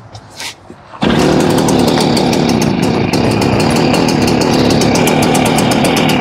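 Stihl backpack blower's small petrol engine running steadily, beginning about a second in, after its broken spark plug boot and terminal were repaired. It is running, so the mended plug wire is carrying spark.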